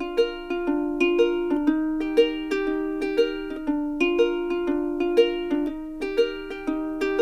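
Background music: a light melody of plucked string notes, each struck and quickly fading, at an even pace of about two notes a second.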